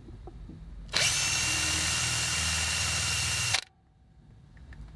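Power drill with a 2.5 mm bit running steadily for about two and a half seconds, drilling out the rivet that holds a toy car's rear wheel, then cutting off suddenly.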